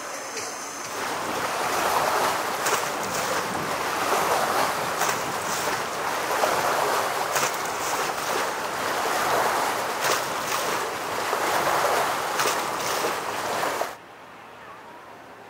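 Rushing, splashing water, swelling and easing every couple of seconds, then cut off abruptly near the end.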